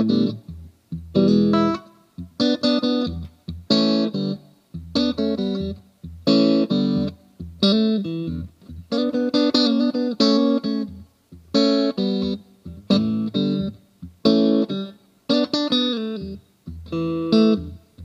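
Tokai SilverStar SS-36 electric guitar, a Strat-style guitar with three single-coil pickups, played plugged in: chords and short riffs struck in phrases, each cut off by a brief stop before the next.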